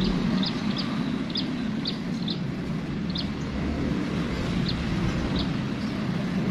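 Steady low mechanical rumble, with a small bird giving short high chirps, about ten of them at irregular intervals.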